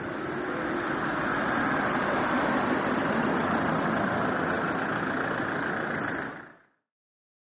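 A steady rushing noise with a low rumble underneath, fading out about six and a half seconds in.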